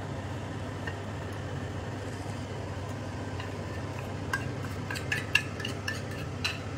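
A metal spoon clinking and scraping in a small steel bowl as spice paste is scraped out, about ten quick ringing clinks starting a little past halfway. Under it, a steady low hum.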